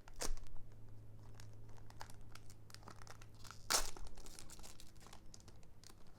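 Foil booster-pack wrapper crinkling and being torn open by hand, with scattered small crackles and one louder crackle about four seconds in.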